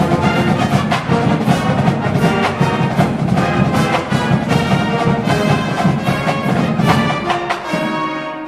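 Brass-led band music, trumpets and trombones over a steady percussion beat; near the end the low parts drop away.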